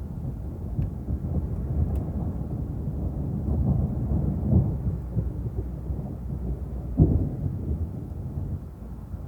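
Thunder rolling in a long low rumble that swells and fades, with a sharper clap about seven seconds in.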